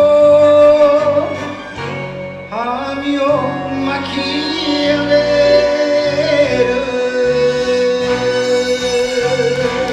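Closing of an enka song over its backing track: a long held sung note fades about a second in, and the instrumental ending goes on with strings and guitar.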